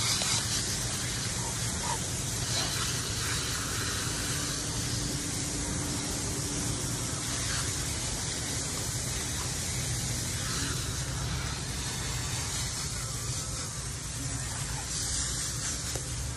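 Garden hose spray nozzle spraying water steadily, rinsing soap off a dog's coat and splashing onto wet concrete.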